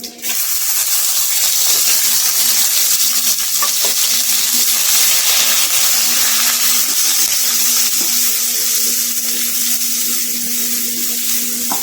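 Coarsely ground black pepper, cumin and garlic spice mix frying in hot tempering oil in a pan, with a loud, steady sizzle that starts suddenly.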